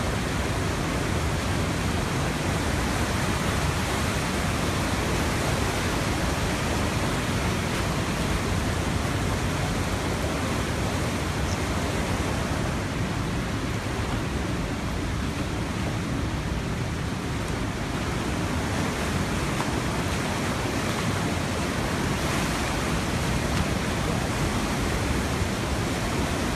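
River in full flood, fast brown floodwater rushing and churning in a steady, unbroken noise.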